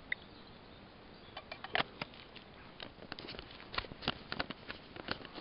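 Irregular crackling clicks and rustles, several a second, of someone moving through garden plants and undergrowth, starting about a second in.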